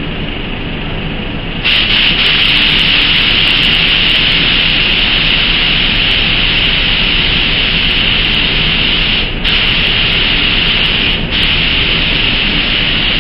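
Compressed air hissing steadily through a gravity-feed HVLP spray gun as its trigger is held, while the air pressure at the gun's inlet regulator is being turned down. The hiss starts abruptly about two seconds in and breaks off briefly twice near the end, as the trigger is let go and pulled again.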